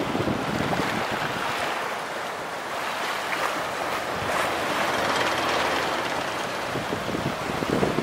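Storm-rough sea, waves washing and breaking on a rocky shore in a steady rush that swells and eases, with wind gusting on the microphone near the start and the end.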